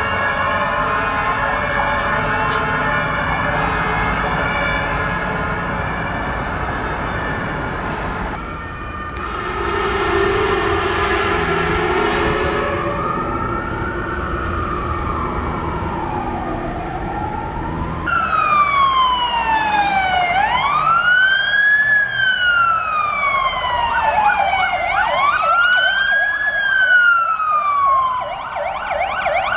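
Emergency vehicle sirens on an alarm run, in several cut-together takes. First a dense mix of siren tones, then a wailing siren that rises quickly and falls slowly, about every four and a half seconds; it is loudest in the last third, as a fire engine passes.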